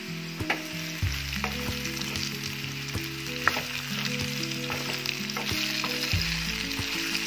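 Potato wedges sizzling in hot oil in a kadai while being stirred with a wooden spatula, with several knocks of the spatula against the pan, the loudest about three and a half seconds in. Soft background music with held low notes plays underneath.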